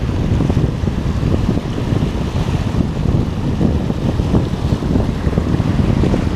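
Wind buffeting the microphone in steady gusts, over sea waves washing across shoreline rocks.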